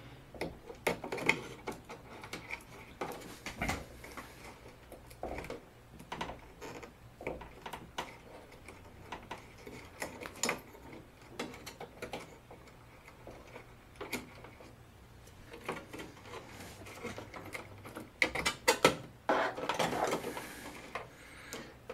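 Hands unplugging wire-harness connectors from an LCD TV's power board: irregular small plastic clicks and wire rattles, with a quick run of clicks near the end followed by a brief rustle.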